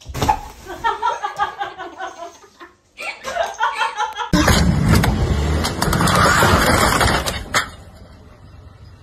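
A person laughing in quick repeated bursts, then a loud rushing noise for about three seconds that cuts off suddenly.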